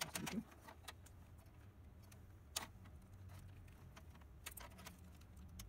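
Faint, scattered clicks and light metal clatter from hands handling a steel hard-drive cage and its drive cables, with one sharper click about two and a half seconds in.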